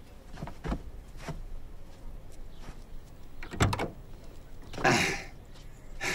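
Light clicks and knocks, then a short sliding, scraping noise about five seconds in, the loudest sound: a truck's door being worked.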